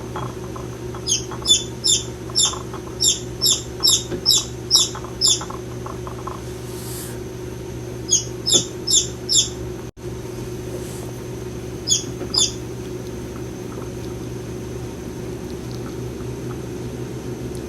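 A bird giving short, sharp squawking calls that sweep downward in pitch, in runs: about ten in quick succession, then four, then two about two-thirds of the way through. A steady low hum runs underneath.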